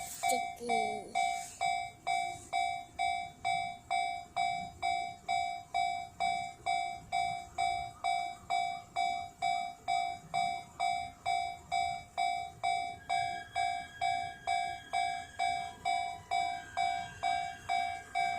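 Japanese level-crossing warning bell ringing in an even, repeating clang of about two strikes a second, the signal that a train is coming and the crossing is closed. A second, higher steady tone joins about two-thirds of the way through.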